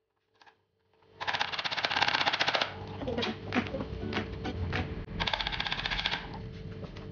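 Raw chicken pieces pounded on a cutting board to tenderise them so the marinade soaks in. About a second in, a fast run of knocks starts, pauses with a few scattered knocks, then comes again in a second fast run.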